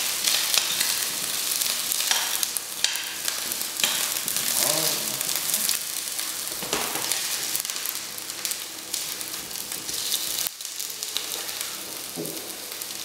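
Asparagus spears frying in hot oil in a pan, a steady sizzle full of small crackles, with a few short scrapes as the pan contents are moved.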